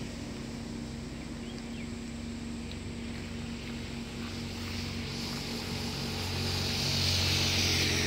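A vehicle running at steady speed, heard from on board: a steady engine hum with road and wind noise. The hiss and low rumble grow louder toward the end.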